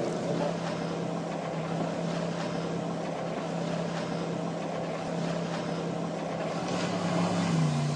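Motorboat engine running steadily across the water, dropping slightly in pitch near the end.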